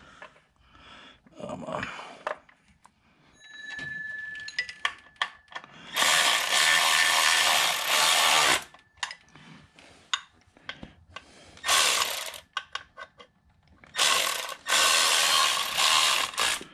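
Cordless ratchet spinning in three bursts, the longest about two and a half seconds, near six, twelve and fourteen seconds in, with light clicks and clatter of tools between. It is running down the bolts of a freshly fitted water pump.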